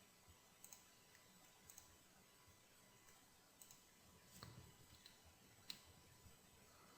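Near silence with faint, scattered clicks of a computer mouse and keyboard, some single and some in quick pairs, the sharpest one near the end.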